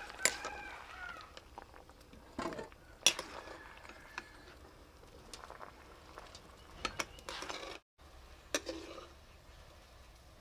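Scattered clinks and knocks of cooking pots and utensils being handled, with quiet stretches between them.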